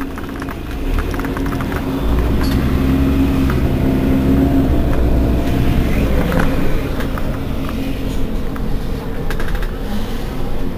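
Mercedes-Benz Citaro Facelift city bus engine running, growing louder about two seconds in as it works under load, then easing off a few seconds later, with light rattles and clicks.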